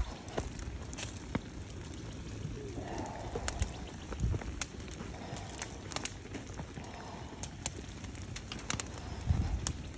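Molten lead crackling and popping in a freshly poured keel mold: scattered sharp pops and ticks over a low rumble, with a couple of heavier thumps.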